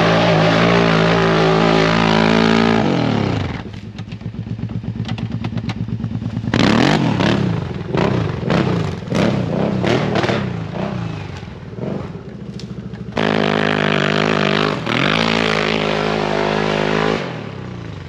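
Snowmobile engine revving hard as the sled pushes through deep snow: held at high revs for about three seconds, then dropping, then a run of quick rev-ups and let-offs, then held high again for about four seconds before easing off near the end.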